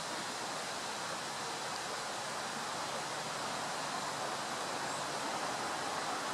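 A steady, even rushing noise with no distinct bird calls or other separate sounds.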